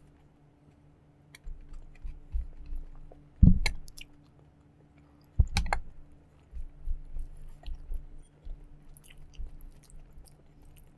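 Close-miked chewing of a mouthful of food, in soft irregular strokes, with two louder sharp sounds about three and a half and five and a half seconds in. A faint steady hum runs underneath.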